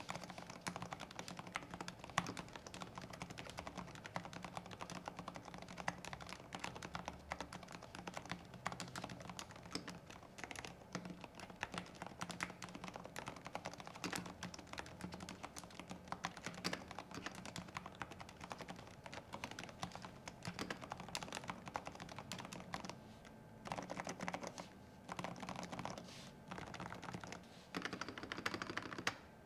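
Typing on a Keychron K4 Max mechanical keyboard with Keychron K Pro Silent Red linear switches: a fast, continuous patter of soft, damped keystrokes. Near the end the typing comes in short runs separated by brief pauses.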